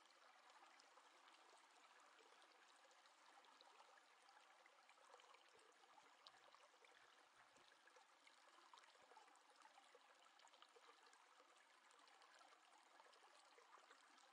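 Near silence: a faint steady hiss of room tone with a few tiny ticks.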